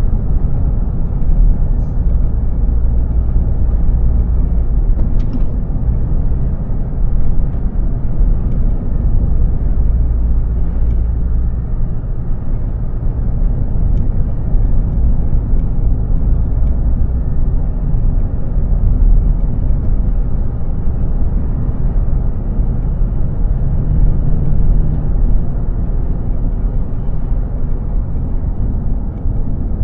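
Steady low rumble of a vehicle driving along a road: road and engine noise.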